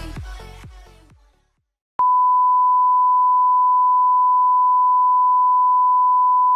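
Electronic dance music with a thumping beat fades out in the first second. About two seconds in, a steady, unbroken test-tone beep starts: the reference tone that goes with colour bars.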